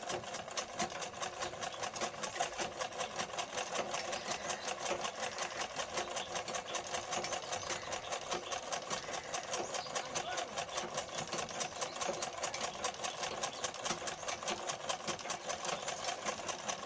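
Domestic sewing machine running steadily, its needle clattering in a fast, even rhythm as it stitches down a folded-over hem along the edge of a mekhela. It starts up right at the beginning.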